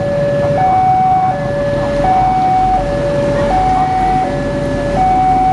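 Indonesian railway level-crossing alarm sounding a repeating two-tone high-low chime, each note lasting about three quarters of a second. A train rumbles past through the crossing from about two seconds in.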